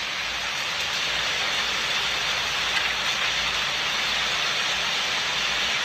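Steady rushing noise of a tornado's strong wind, even and unbroken.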